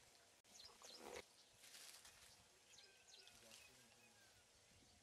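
Near silence: faint rural outdoor ambience with a few faint, short, high bird chirps.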